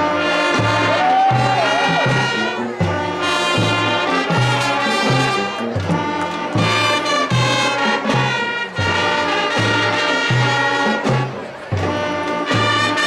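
High school marching band playing: brass chords over a steady, repeating bass line.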